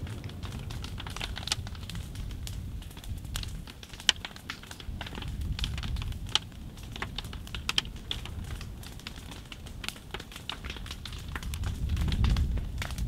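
Wooden upright piano burning, its fire crackling and popping in quick irregular snaps over a steady low rumble, with the sharpest pops about four and six seconds in.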